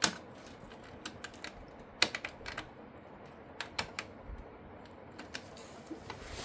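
Scattered plastic clicks and taps from a SATA power cable and its connector being handled and fitted to an SSD, with two sharper clicks at the start and about two seconds in.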